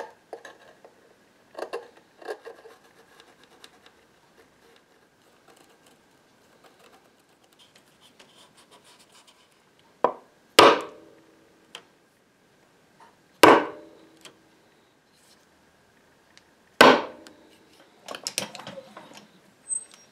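Hand woodworking with a chisel: light scraping and paring on wood, then sharp knocks about ten seconds in, two more a few seconds apart, and a flurry of lighter taps near the end.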